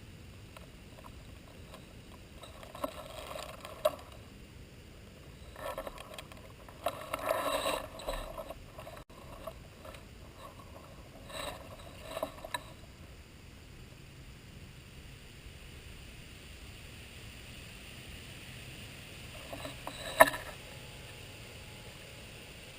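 Several short bursts of mechanical clicking and rattling, then a single sharp snap about twenty seconds in.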